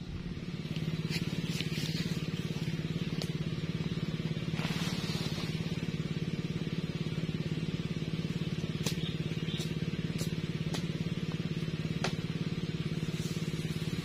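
A small engine running steadily with an even low drone, with a few sharp clicks scattered through.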